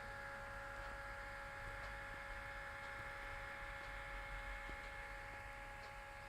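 HP ProBook 430 G4 laptop giving off a steady whine of several high tones over a low hum: the very loud noise that the owner reports as a fault in the machine.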